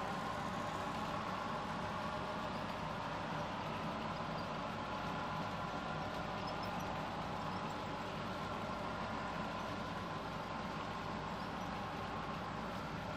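HO scale double-stack container train rolling past close by, a steady rumble of the well cars' wheels on the track with a faint whine.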